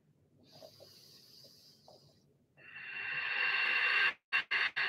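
A person breathing deeply: a faint inhale, then about two and a half seconds in a long, loud hissing exhale that breaks up into short choppy bits near the end.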